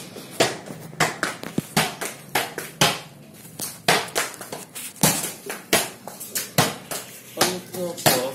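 A small football being kicked and bouncing on a concrete floor: a string of sharp, irregular thuds, about three a second.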